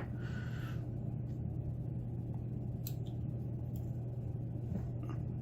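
Steady low hum under faint background noise, with a short hiss about a second in and two faint light ticks in the middle.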